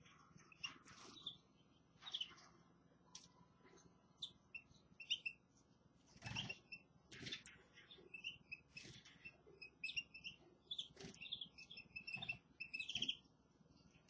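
Small caged finches chirping and twittering in short high calls, which come thicker in the second half. A few soft knocks sound between the calls.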